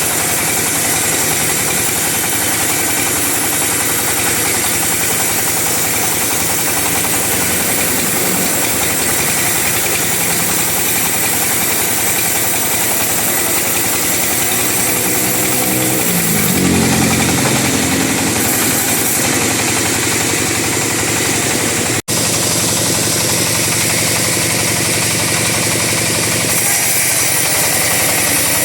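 Two-stroke chainsaw running steadily as it saws a teak log. About sixteen seconds in its pitch drops and it gets louder, and a little later the sound cuts out for an instant.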